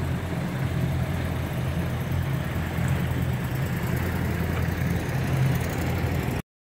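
Engine running steadily at a low, even pitch, with rushing noise over it; the sound cuts off suddenly near the end.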